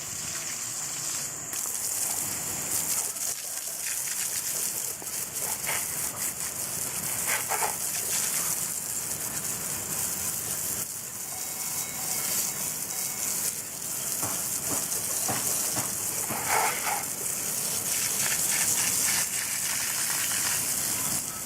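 Garden hose spraying water onto a pocket bike to rinse off degreaser, a steady hissing gush.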